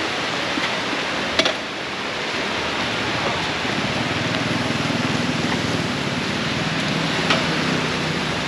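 Steady hiss of heavy rain. From about halfway a low, even motorbike engine hum joins underneath, with a couple of short clicks.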